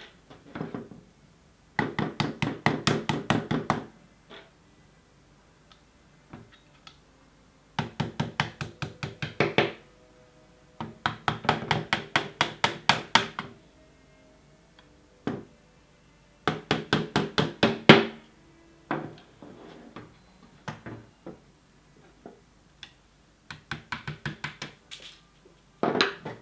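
A hammer tapping a pin punch in quick runs of sharp knocks, about seven a second, in several bursts with pauses between, driving the receiver pins out of a GHK 553 gas blowback airsoft rifle.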